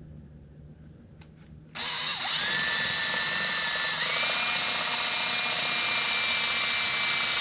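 Power drill boring a shallow entry hole into a wooden board, starting about two seconds in with a steady motor whine that steps up in pitch about four seconds in.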